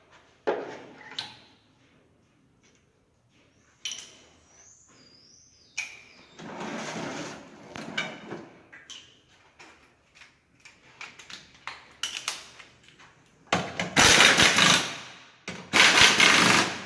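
Metal parts knocking and clattering as a manual gearbox casing is fitted together, with a few short squeaks. Near the end come two loud noisy bursts of about a second and a half each.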